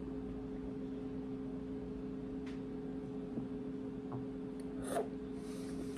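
Quiet room tone with a steady low hum, broken by a few faint clicks while a protein shake is drunk from a plastic shaker bottle. A short mouth sound comes about five seconds in, after the drinking.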